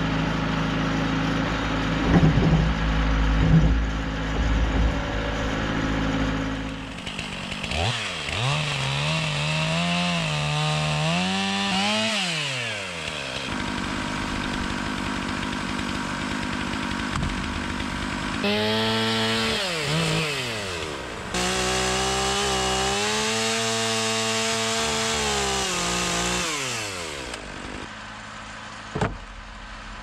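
A low, steady engine drone with a few knocks, then a chainsaw twice revving up, holding at speed and dropping back again, as when cutting wood.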